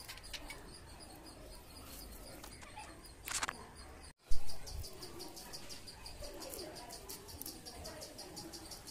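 Insects chirping steadily as a fast, even train of high ticks over a low rumble. A sudden loud snap comes just after a brief dropout about four seconds in.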